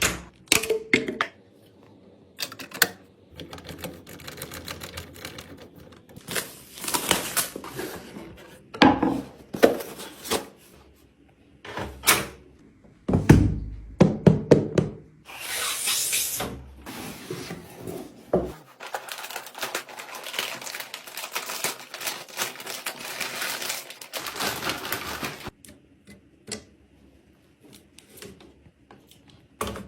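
Irregular clicks, taps and knocks mixed with rustling, as of hands handling small hard objects and packaging, with short pauses between bursts.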